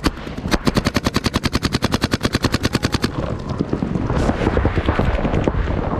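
Paintball marker firing a rapid, very even string of shots, about a dozen a second, which stops about three seconds in; after it come scattered, irregular shots from markers further off over a rustling noise.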